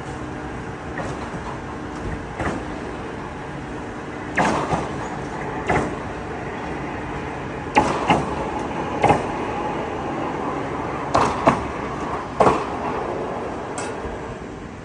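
Horyong PE700 ladder truck's loaded lift platform running up the extended ladder: a steady mechanical running noise with a faint hum at first, then a series of irregular sharp clunks as the platform climbs toward the top.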